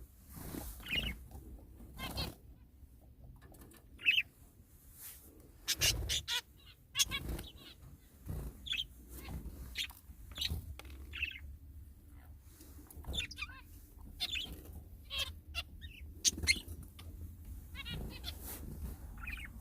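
Pet birds giving short, scattered chirps and squawks, with sharp clicks and flutters between the calls.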